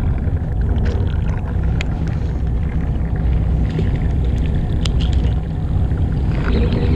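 Fishing boat's engine running steadily with a low rumble, with a few light clicks over it.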